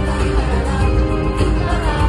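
Live band playing a song through the concert sound system, with drums, bass and electric guitars under a singer's vocals. Heard from within the crowd, with a heavy bass end.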